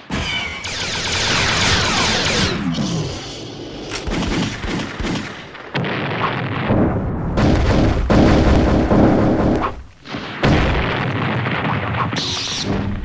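Library sound effects of gunfire and explosions layered into a dense, continuous barrage, with a falling whistle about a second in. The barrage drops out briefly near the ten-second mark and then resumes.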